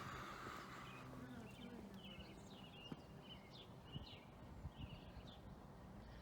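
Small birds chirping faintly, short high calls repeating every half second or so, with a few soft knocks, such as footsteps.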